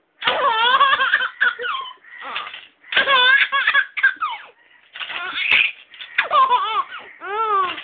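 Baby laughing in repeated high-pitched bouts broken by short pauses, the pitch rising and falling within each laugh.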